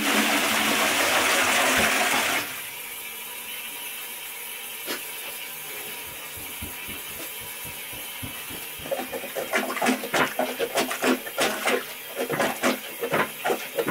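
Toilet flushing: a loud rush of water for about two and a half seconds, then a quieter steady hiss as the cistern refills. From about nine seconds in, a rubber plunger is worked in the bowl in quick, irregular strokes.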